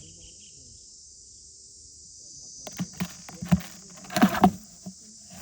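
Steady high-pitched trilling of crickets. From about halfway through there is a run of knocks and clatters, loudest about a second before the end.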